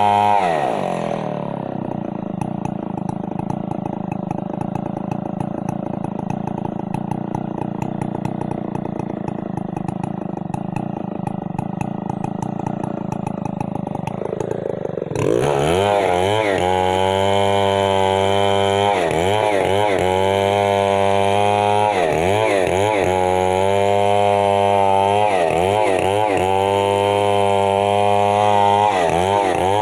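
Stihl MS 070 two-stroke chainsaw: the engine falls from high revs to a lower steady speed in the first second or two, then runs there until about halfway through. It then revs back up and runs hard, its speed dipping and recovering every second or two.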